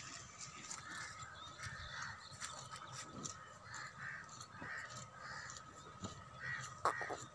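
Crows cawing repeatedly, with a faint steady high tone and scattered light clicks underneath.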